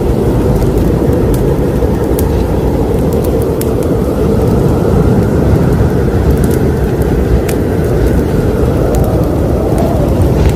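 Wood fire burning in a fireplace: a loud, steady low rushing noise from the flames, with frequent sharp crackles and pops at irregular moments.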